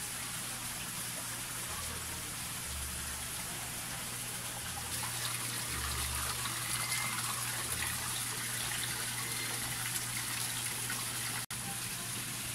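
Steady rush of running water, a little louder from about five seconds in, breaking off for an instant near the end.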